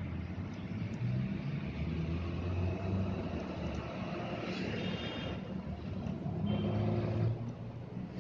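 Road traffic: vehicle engines running and passing out of sight, a steady low rumble that swells and fades.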